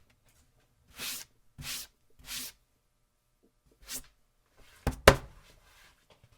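A few last, spaced-out strokes of sandpaper rubbing on wood, then two quick sharp knocks, the loudest sounds.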